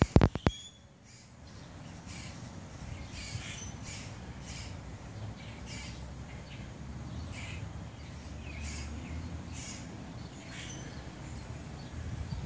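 Birds calling in the background, short high calls about once a second, over a low steady rumble. A cluster of sharp clicks right at the start is the loudest thing.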